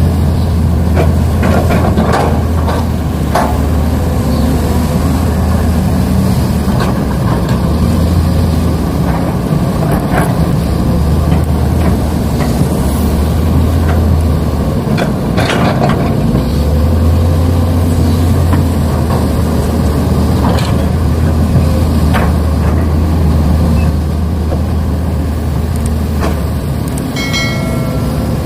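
Steady low engine running, like a heavy diesel, from RC model heavy equipment at work, with scattered clicks and knocks. A short series of high beeps comes near the end.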